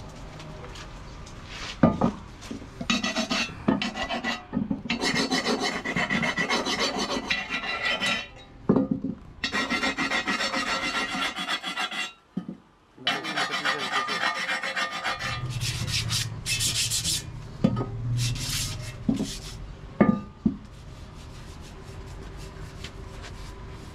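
Filing on a raw cast-iron sewing machine body casting: long runs of rough, rasping strokes with short breaks between them, and a few sharp metal knocks.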